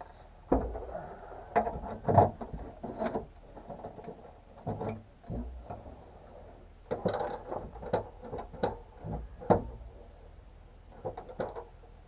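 Irregular clicks, clunks and short rattles of a rear hatch's latch mechanism and linkage being worked by hand, testing whether the latch is locked.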